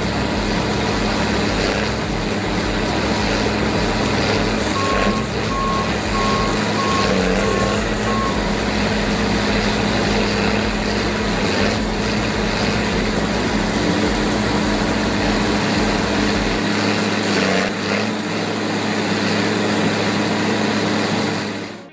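Single-shaft, low-speed, high-torque shredder grinding palm trunks into fibre, a steady machine drone under the noise of wood being torn. A few seconds in, a warning alarm beeps about six times in an even row.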